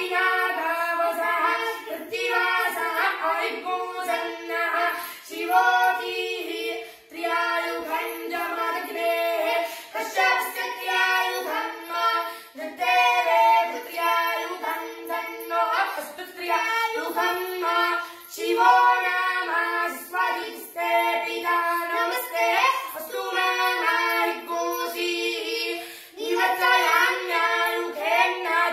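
A boy chanting mantras in a sing-song recitation: continuous phrases with short pauses for breath.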